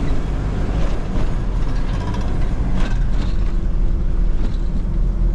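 Vehicle driving along a road, heard from inside the cabin: steady engine and road rumble, with a steady hum joining about three seconds in.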